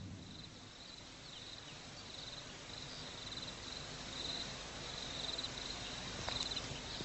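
Faint insects chirping outdoors: short, high, pulsed trills repeating in bouts over a low steady hiss, with a single faint tick about six seconds in.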